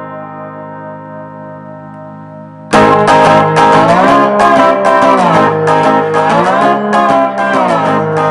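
Handmade lap steel slide guitar: a chord rings out and slowly fades, then about two and a half seconds in a loud passage begins, picked notes gliding up and down in pitch under the slide.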